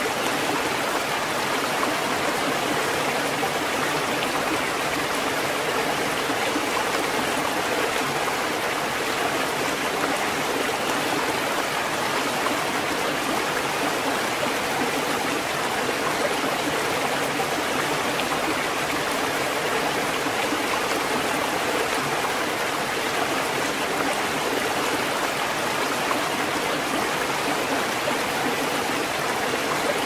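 Steady rushing water, an even hiss that holds at one level with no separate rise and fall of waves.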